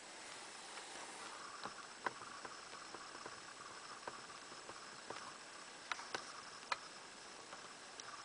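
Faint irregular clicks and ticks over a quiet background hiss, the sharpest about two seconds in and a cluster of three near the end.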